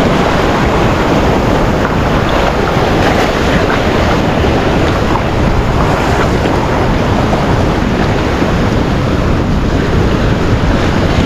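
High-tide seawater surging and washing in the shallows, loud and steady, with wind buffeting the microphone.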